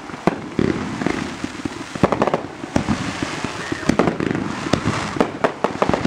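Consumer fireworks going off: an irregular run of sharp pops and crackles, bunched in clusters every second or so, over a continuous hiss of burning sparks.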